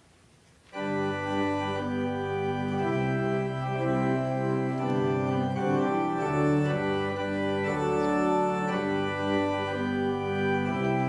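Church organ coming in sharply about a second in and playing a hymn in slow, sustained chords that change every second or so.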